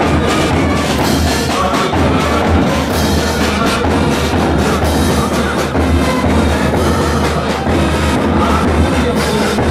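Brass marching band playing a march with drums beating steadily.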